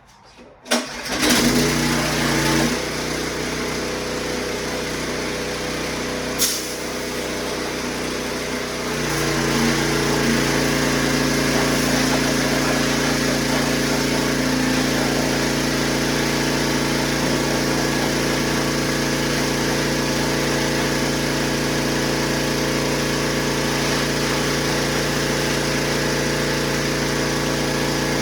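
Karcher pressure washer starting up under a second in and running with a steady hum, stepping up louder and fuller about nine seconds in. A single sharp click near the middle.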